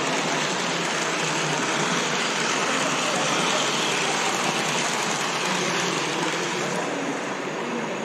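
Model railway train running on the layout: a steady, even rushing noise with no clear pitch, easing slightly near the end.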